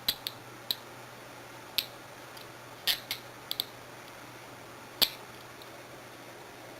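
Nickel-finish Smith & Wesson Model 100 handcuffs being handled, giving short, sharp metallic clicks at irregular intervals, about nine of them over five seconds, the loudest near the end.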